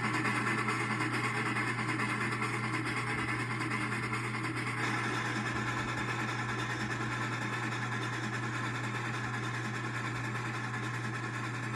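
Model passenger train rolling past on its track: a steady, whirring rattle of small metal wheels on the rails with a constant low hum underneath.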